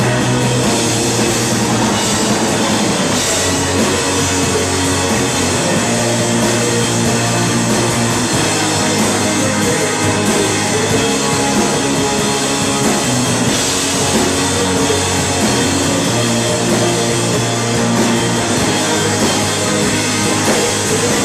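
Live rock band playing loud and steady: electric bass, a drum kit and an electric guitar together.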